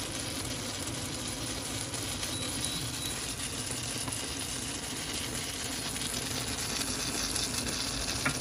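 Ratatouille with eggs sizzling and simmering steadily in a frying pan, with a short knock near the end.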